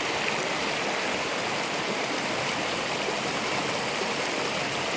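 Mountain creek rushing steadily over rocks, a constant even rush of flowing water.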